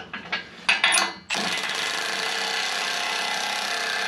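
A few sharp metal knocks, then a power tool runs steadily for about three seconds, starting abruptly.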